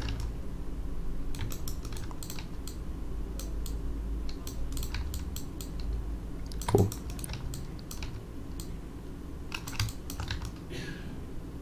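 Irregular clicks of computer keyboard keys and mouse buttons, with one sharper click about seven seconds in, over a low steady background hum.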